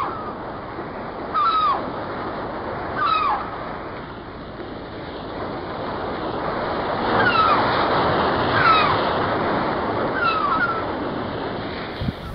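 Ocean surf washing steadily, swelling towards the middle, with about six short falling calls over it every second or two.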